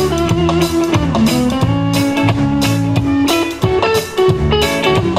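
Live band playing an instrumental passage: electric guitar over bass guitar and a drum kit.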